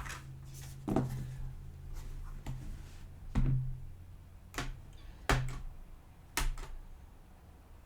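A few separate soft clicks and knocks of handling, spaced a second or so apart, over a low steady hum.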